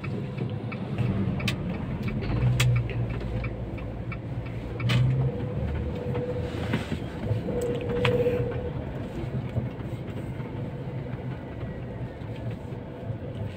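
A car engine running close by, a steady low hum that eases off about five seconds in, with a few sharp clicks over it.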